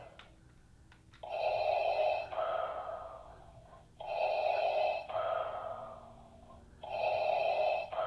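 Darth Vader's mechanical respirator breathing: three slow, hissing breaths, each an inhale followed by an exhale, starting about every three seconds.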